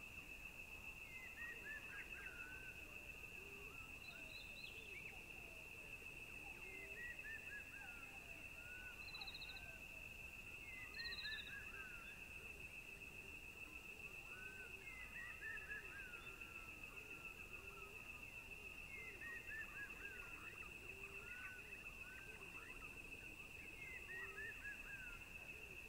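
Faint outdoor nature ambience: a steady high-pitched insect drone, with a bird repeatedly calling a quick descending run of chirps every few seconds and a few short higher chirps.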